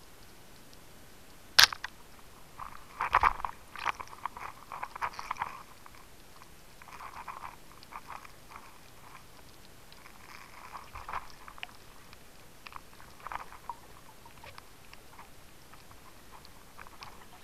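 Underwater knocks and crackling picked up through a diving camera's housing. There is one sharp knock about one and a half seconds in, then bursts of crackly clicking that come and go.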